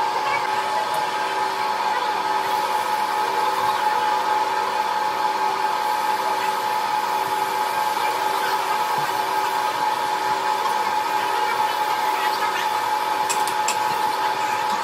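Metal lathe running with a four-bladed cast ship propeller spinning on it: a steady whirring hum with a strong high tone and a faint low pulsing about once a second. A few sharp ticks come near the end.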